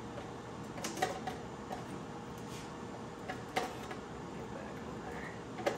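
A handful of short, light metallic clicks and taps from tools being handled as a coolant bleeder screw and valve are closed, over a steady background hum.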